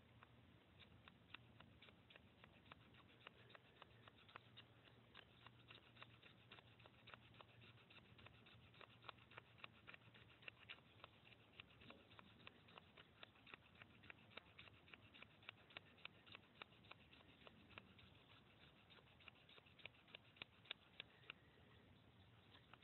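Faint, repeated short scrapes, several a second, of a steel striker dragged along a magnesium fire-starter block, throwing sparks into a tinder bundle that isn't catching.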